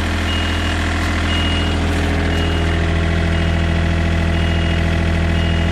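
An engine running steadily at idle, with a short high-pitched beep repeating about once a second over it.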